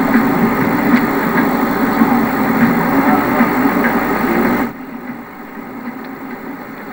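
Paddle steamer's paddle wheel turning in its paddle box, a loud, steady mechanical churning with light ticks. About two-thirds of the way through it drops suddenly to a quieter level.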